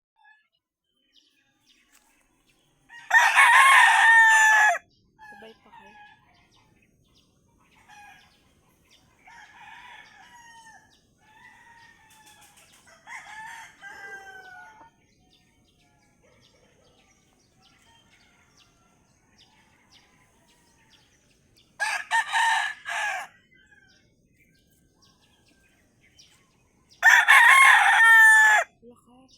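Rooster crowing loudly three times, each crow one to two seconds long, the middle one choppier, with softer short clucks and calls between the first two crows.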